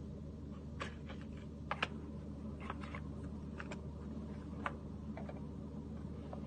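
Irregular light clicks and taps from handling a new smartphone and its box, about a dozen, the loudest a quick pair about two seconds in, over a steady low hum.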